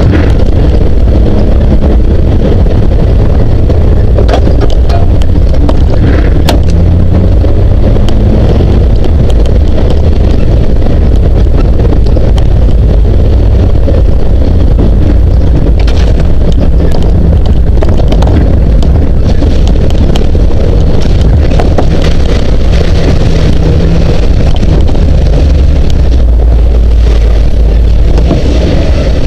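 Jeep CJ7 engine running steadily as the Jeep drives over a rough dirt trail, under a heavy, constant rumble of wind on the microphone, with scattered clicks and knocks from the jolting.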